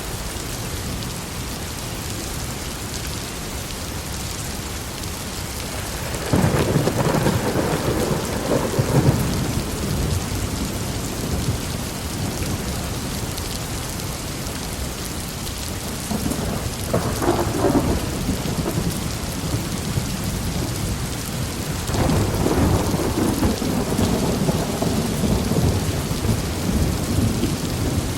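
Heavy rain falling steadily, with rolls of thunder rumbling three times: a long roll about a quarter of the way in, a shorter one past the middle, and another long roll near the end.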